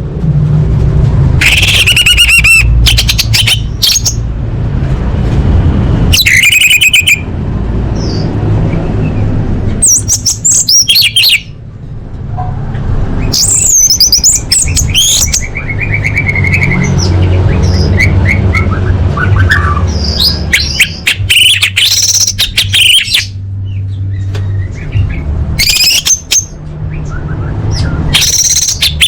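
Orange-headed thrush singing in varied bouts of a second or two, separated by short pauses, its song full of fast whistled phrases and imitated calls. A steady low rumble sits underneath.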